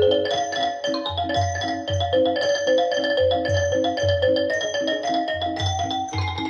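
Recorded music played over a pair of Wilson Audio WATT/Puppy 7 loudspeakers: quick, repeating pitched notes over a low bass pulse that comes about once a second.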